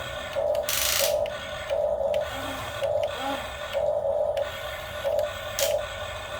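Radio-controlled excavator's small electric motors whining in repeated short stop-start bursts as the controls are worked. A louder rushing, scraping noise comes about a second in.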